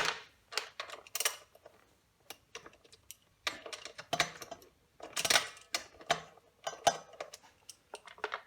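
Socket wrench loosening the front fork axle pinch bolts: a run of short, irregular metal clicks and clinks from the ratchet and the socket on the bolts.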